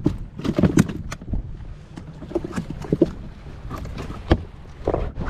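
Small waves lapping and slapping against an inflatable boat's tube, under scattered irregular knocks and clicks, with one sharper knock about four seconds in.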